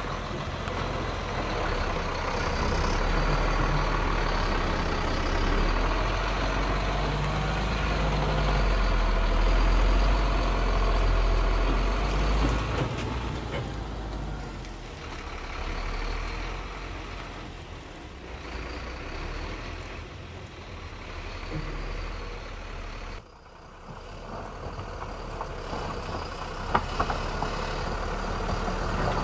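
Mercedes-Benz Zetros 4x4 truck's diesel engine running at low speed as it crawls over rough terrain. It is louder in the first part, then quieter, with a sudden drop about three quarters of the way through.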